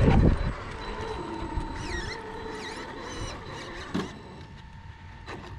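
Traxxas X-Maxx electric RC monster truck's motor whining at low speed, its pitch wandering as it is driven a short way into position, over a steady hum. A loud rumble at the very start, a knock about four seconds in, and birds chirping in the background.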